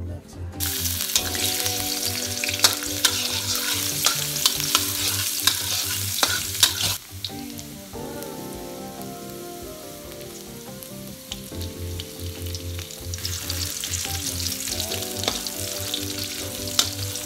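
Minced garlic sizzling in hot oil in an aluminium wok, stirred with a metal spatula that clicks and scrapes against the pan. The sizzle starts about half a second in, dies down for a few seconds in the middle, then rises again.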